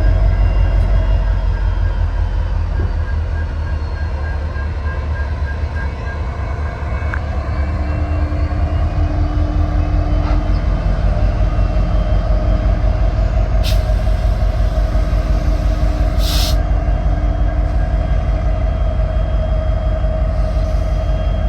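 EMD SD70MAC diesel-electric locomotives running, a steady low engine rumble with a steady hum over it. Two brief high hisses come in the second half.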